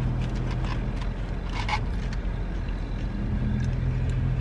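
Steady low hum of an idling vehicle engine, heard from inside a car, fading briefly about halfway through and coming back. Over it come a few short crunches and clicks of food being handled and eaten from a foam container, the loudest about a second and a half in.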